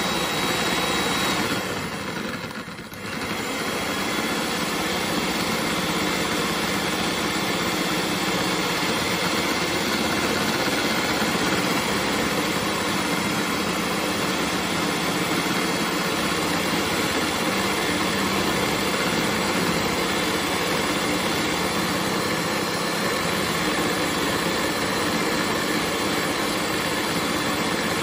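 Electric hand mixer running steadily, its twin wire beaters whisking a frothy egg mixture in a plastic bowl, with a light whine over the motor. The sound dips briefly about two seconds in, then runs on evenly.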